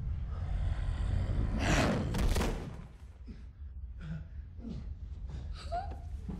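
Horror-film soundtrack: a steady low rumble under a loud noisy rush about two seconds in, then a woman's short gasps as she struggles on the floor.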